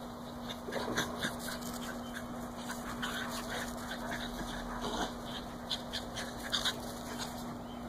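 Two small dogs play-chasing, making short, scattered vocal noises in irregular bursts.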